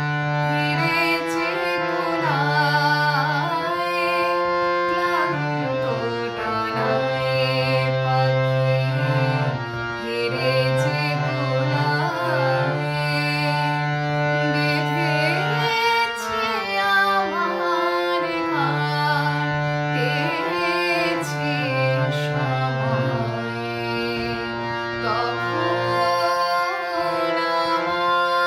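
A woman singing a Bengali song with wavering, ornamented held notes, accompanying herself on a harmonium that sustains chords and stepping bass notes beneath her voice.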